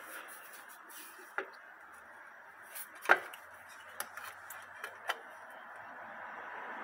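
A few light knocks and clinks from a 09K automatic transmission's oil pan as it is worked free and lowered by hand, the loudest about three seconds in, over a faint steady hiss.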